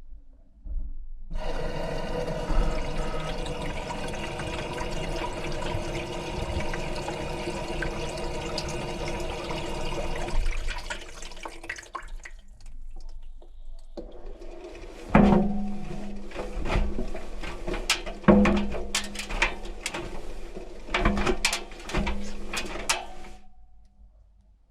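Washing machine at work, heard from inside the drum through a camera's waterproof housing: a steady rush of water for about ten seconds, then after a short lull the drum turns with water sloshing and a run of sharp knocks, stopping near the end.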